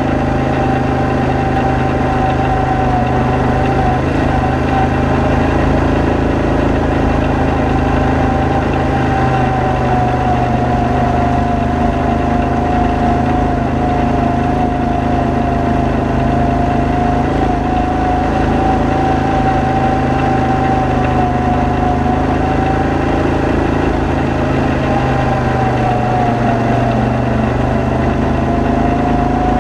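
ATV engine running steadily at an even throttle while the machine rolls along a gravel trail, with a high whine that drifts slightly up and down in pitch.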